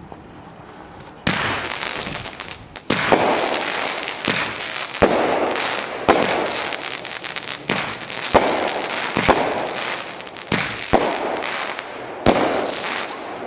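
Fireworks going off after a quiet second of burning fuse: a string of sharp bangs about once a second, each trailing off into a hissing rush.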